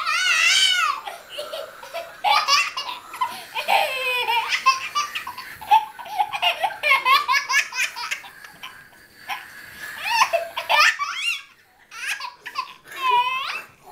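Toddler laughing hard in repeated high-pitched bursts of belly laughs and giggles, with a brief pause near the end.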